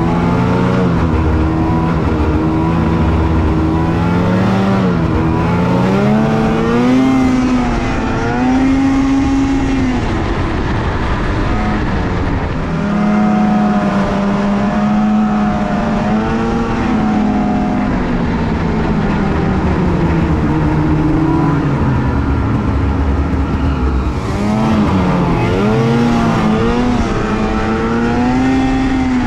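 Snowmobile engine running under way on a trail, its pitch rising and falling again and again as the throttle is worked, with dips around 4, 12 and 25 seconds in.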